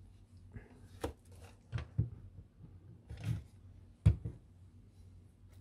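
A few light knocks and rubbing sounds of hands handling a plastic telescope tube, with the loudest knock about four seconds in.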